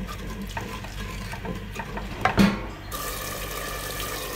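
Wooden spoon stirring and scraping thick frying masala and potatoes in a clay pot, with a louder knock of the spoon about halfway through. Hot oil sizzles steadily in the second half.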